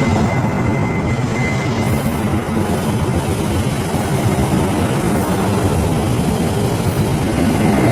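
CC206 diesel-electric locomotive running under way, a steady heavy rumble.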